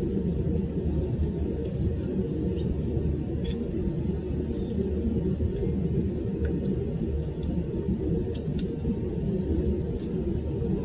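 Airliner cabin noise during take-off or climb: the jet engines and airflow make a steady low rumble, with a few faint ticks and rattles from the cabin fittings.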